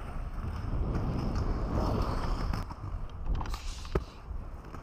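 Adapt HyperSkate GTO inline skate wheels rolling over concrete paving, a steady low rumble, with a few small clicks and one sharp knock about four seconds in.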